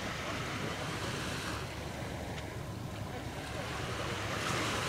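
Small waves washing against the shore, with wind rumbling on the microphone. The wash eases about a second and a half in and swells again near the end.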